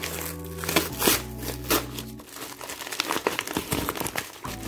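Bubble wrap and kraft paper packaging crinkling and rustling in a string of quick crackles as the bubble-wrapped package is pulled out of the paper mailer and handled. Low sustained tones of background music sit underneath.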